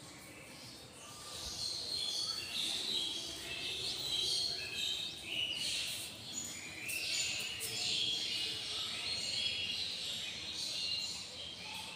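Small birds chirping: many short, high calls overlapping one another, getting busier about a second in.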